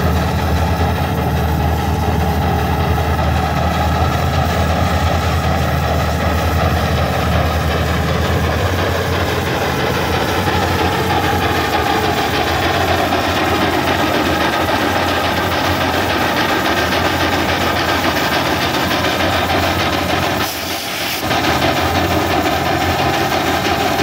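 Miniature 3/8-scale Case steam traction engine working hard under load on a pulling sled, its exhaust chuffing up the stack in a fast, steady stream. A low steady drone runs underneath for the first third, and the sound dips briefly near the end.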